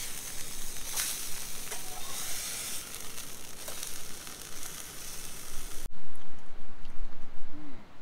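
A steady sizzling hiss with scattered crackles, cutting off about six seconds in to a louder low rumbling noise.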